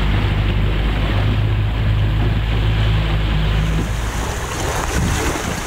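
Outboard-powered skiff under way at sea: a steady low motor hum under wind on the microphone and rushing water. About four seconds in the motor hum drops away, leaving a lighter, brighter hiss of wind and water.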